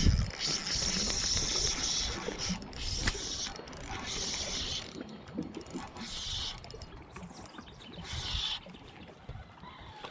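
Fishing reel whirring in repeated bursts of about a second each, several times, growing fainter towards the end.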